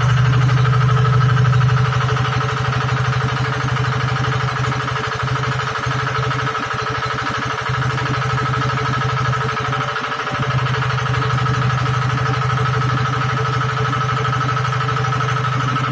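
Engine of a hydraulic water-well drilling machine running steadily, with a constant higher whine over its low pulsing note. The low note drops out briefly a few times.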